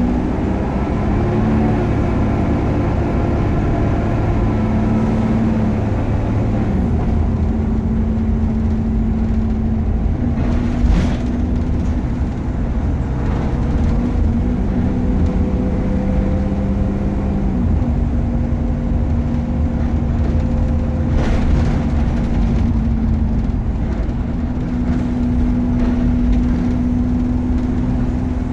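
Optare Versa single-deck bus running along the road: a steady engine drone with a whine, its pitch stepping up and down several times. Two brief sharp knocks stand out, one about a third of the way in and one about three quarters in.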